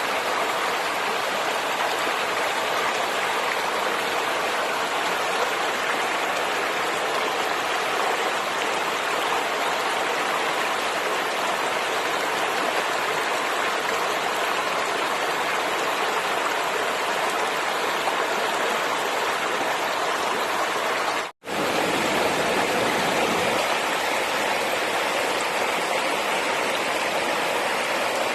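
Flowing water rushing steadily, breaking off for an instant about two-thirds of the way through and then going on.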